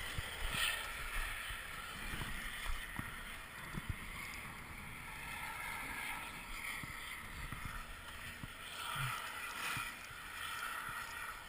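Skis sliding and scraping over packed groomed snow, a steady hiss with a few faint clicks.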